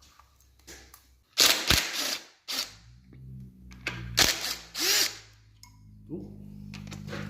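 Shop tool noise from unbolting parts off a 400 cubic-inch V8 during teardown: several short bursts of about half a second each, with a quieter steady hum under the second half.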